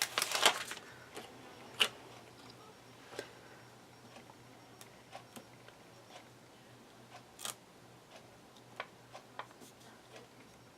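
Quiet handling of a vinyl wall sticker piece and its backing paper: a short crinkle at the start, then scattered faint ticks and taps as it is positioned and pressed down.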